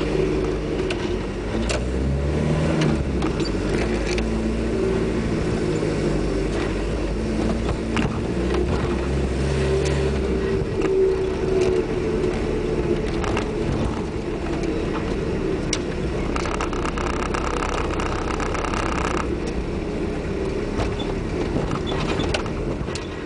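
Diesel van's engine and road noise heard from inside the cab while driving, the engine note rising and falling as the van speeds up and eases off, with a few short knocks and rattles.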